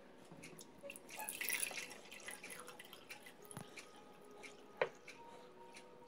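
Water poured from a plastic bottle into a glass jar, splashing and dripping, loudest about a second in. A single sharp click near the end.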